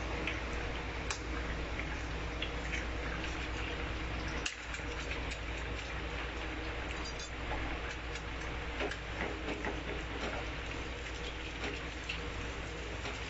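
Eggs frying in hot oil in a non-stick pan, a steady sizzle with many small pops and crackles. There is a single sharp knock about four and a half seconds in, and near the end a wooden spatula stirs and scrambles the eggs in the pan.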